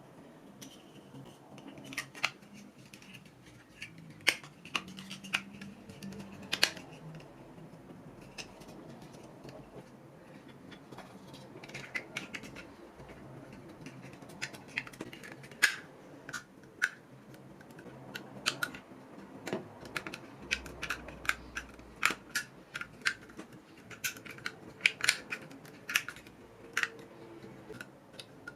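Irregular sharp clicks and light taps of small toy-truck parts being handled and fitted, coming more thickly in the second half.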